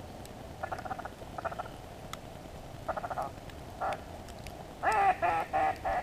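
Waterfowl calling in short, honking notes: a few scattered calls, then a quicker run of five or six near the end.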